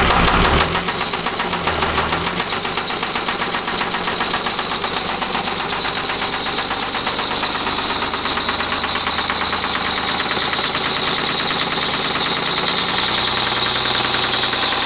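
Nissan 300ZX (Z32) 3.0-litre V6 settling into a steady idle just after being started, with a rapid, even knocking from inside the engine. The knock is bad enough that the engine is due for a full rebuild.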